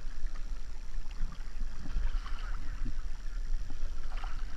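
Water lapping gently around a kayak on a slow river, over a steady low rumble, with a few small ticks.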